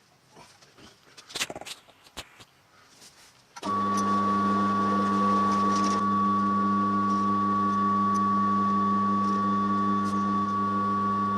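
A few clicks and knocks of handling, then a machine tool's electric motor switches on about three and a half seconds in and runs at a steady speed with a constant hum and whine.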